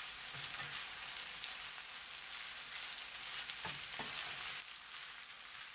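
Rice frying in butter in a pan, a steady light sizzle and crackle as it is stirred with a spatula, with a few brief scrapes partway through.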